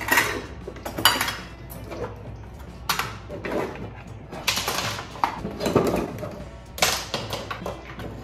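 Kitchen utensils clattering as they are lifted out of a drawer: sheathed knives, a can opener and other metal gadgets knocking against each other and the drawer bottom in a string of separate clatters.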